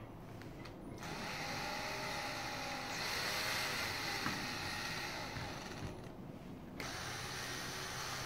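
Cordless drill-driver driving a screw into a wooden slat. The motor runs for about five seconds with its pitch wavering under load, stops briefly, then starts up again near the end.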